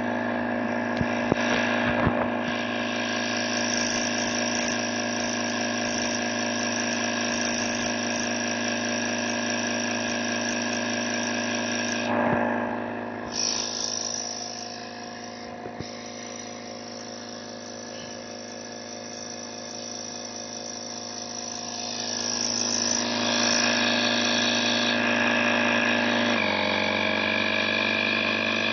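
OSHOTTO 2-in-1 car vacuum cleaner and tyre inflator running, a steady motor hum. It turns quieter for several seconds in the middle, then comes back louder, and near the end its pitch drops a little.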